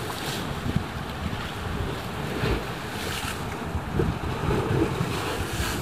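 Wind buffeting the microphone over the wash of sea surf breaking on rocks below.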